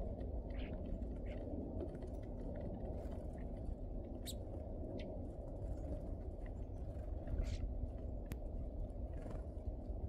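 Scattered short bird chirps and calls from birds at a snowy feeder table, with a couple of sharp clicks, over a steady low outdoor rumble.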